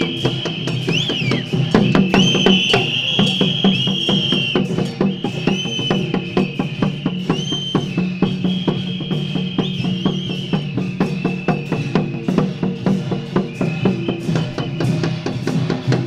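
Taiwanese temple-procession percussion: drums, gongs and cymbals beating rapidly, with long high held notes that bend at their ends.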